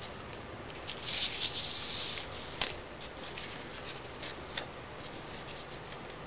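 Folded paper airplane rustling and crinkling as it is handled and pressed at the nose. A burst of crisp rustling comes about a second in, followed by a few sharp clicks, the loudest about two and a half seconds in.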